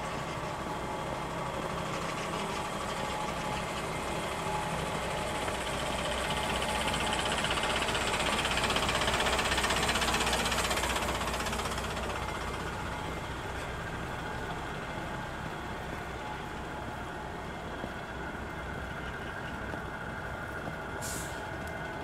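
City bus running, its engine and road noise swelling over a few seconds to a peak about halfway through, then easing back to a steady run. A brief hiss near the end.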